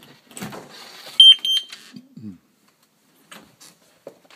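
Security alarm keypad giving two short, high-pitched beeps in quick succession.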